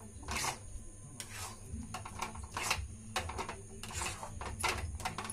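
Steel spoon stirring and scraping thick besan halwa around a steel pan, with short rasping strokes at an uneven pace, about two a second.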